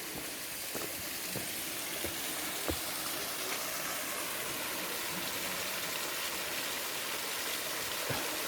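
Steady, even hiss of outdoor background noise, with a few faint soft thuds in the first three seconds.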